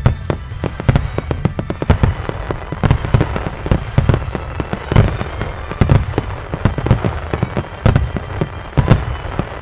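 Wide starmine fireworks barrage: aerial shells launching and bursting in rapid succession, a dense string of loud, overlapping bangs several times a second over a continuous low rumble.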